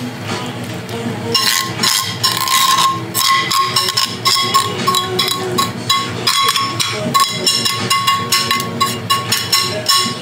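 Metal tongs scraping sauce out of a metal pan: many quick scraping strokes over a steady metallic ring, starting about a second and a half in.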